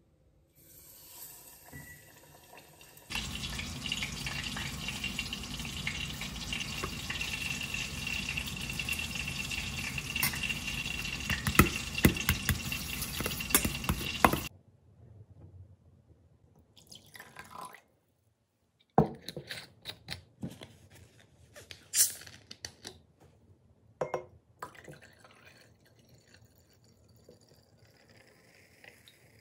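Pieces of flounder frying in hot oil in a small saucepan, a steady sizzle with crackles for about ten seconds that stops suddenly. After that, a metal spoon clinks and scrapes in a stainless steel bowl as a yogurt and mayonnaise dressing is mixed.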